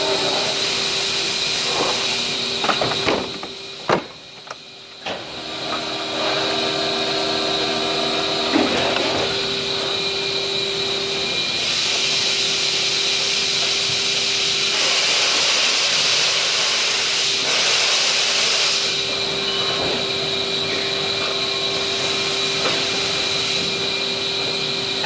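Steady mechanical hiss and hum of running machinery, with one constant tone, nearly cutting out for about a second around four seconds in. A few knocks of hollow plastic parts being handled and stacked come just before that drop.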